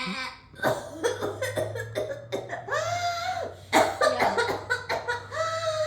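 A child's coughing fit: many quick, harsh coughs in a row, broken by a few drawn-out voiced sounds, in a case presented as whooping cough.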